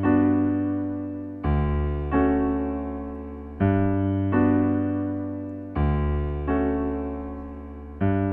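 Background music of slow electric-piano chords, eight struck in turn, each ringing and fading before the next.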